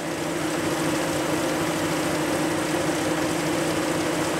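Diesel engine of a PKP SM42 diesel-electric shunting locomotive idling steadily, with an even low throb and a steady hum.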